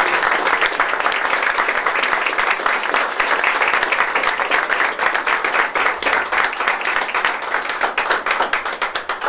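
A small group applauding: steady hand clapping that thins out into a few separate claps near the end.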